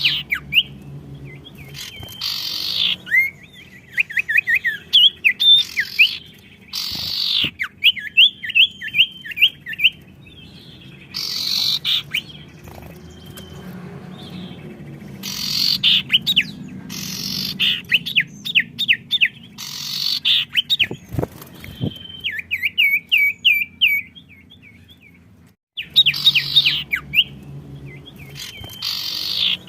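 Cage songbirds singing back and forth in full song. Each phrase opens with a loud harsh burst and runs into a quick string of high chirping notes, repeated every few seconds with short pauses between.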